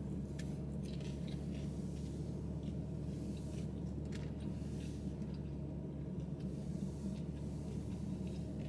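Steady low hum in a car cabin, with faint scattered clicks and scrapes of a plastic fork in a foam takeout container and quiet chewing.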